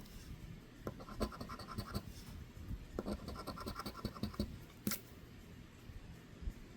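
A coin scraping the latex coating off a scratch-off lottery ticket, in runs of short rapid strokes with brief pauses between them. A single sharp click comes near the five-second mark.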